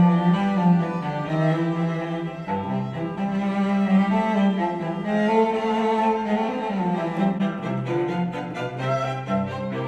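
Classical music with sustained low notes, played back through JBL 306P MKII studio monitors and then Yamaha HS8 studio monitors, as recorded by a microphone in the room.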